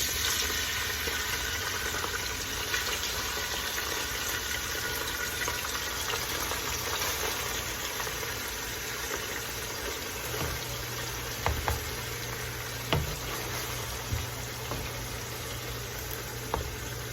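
Collard greens frying in hot oil in a pot: a steady sizzle that slowly dies down, with a few light knocks about ten to thirteen seconds in.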